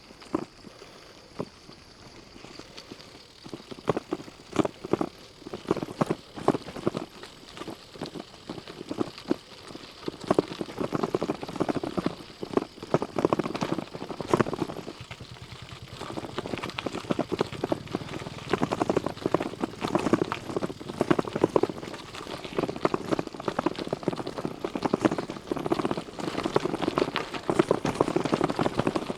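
Bicycle tyres crunching over a loose gravel track on a steep downhill, an irregular patter of small crunches and clicks that grows denser and louder from about ten seconds in.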